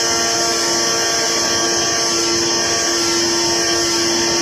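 AOKE CNC flatbed cutter plotter running as it cuts a corrugated cardboard sheet: a steady machine hum with a few fixed tones and a strong high hiss.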